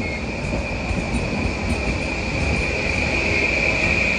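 Croatian Railways 6112-series electric multiple unit running past along the platform: a rumble of wheels on rail under a steady high-pitched squeal, which grows louder about three seconds in.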